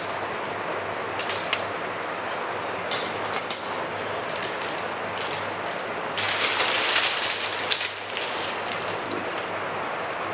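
Scissors snipping the tip off a plastic piping bag filled with cream, a few sharp snips in the first seconds, then the plastic bag crinkling for a couple of seconds as it is handled and squeezed, over a steady hiss.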